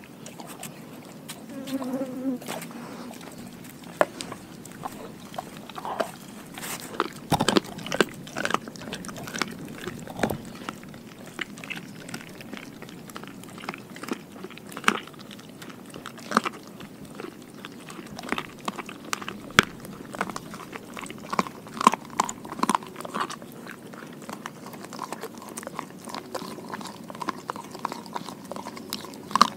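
Doberman chewing a raw pig ear, close up: irregular crunches and bites, some sharp and loud, at an uneven pace throughout.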